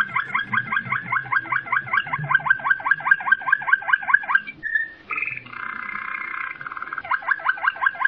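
Cucak ijo leafbird singing: a rapid run of short rising notes, broken about halfway by a couple of seconds of harsh, buzzy chatter, after which the fast rising notes start again.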